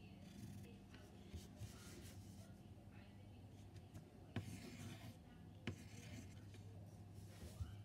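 Faint scratching of a pencil on paper in short, irregular strokes. There are two sharp taps a little past the middle.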